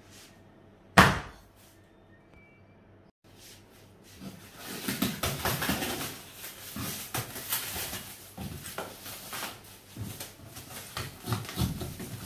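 Plastic stretch wrap crackling, crinkling and tearing as it is cut with a knife and pulled off a cardboard-wrapped package, starting about four seconds in. One sharp knock about a second in is the loudest sound.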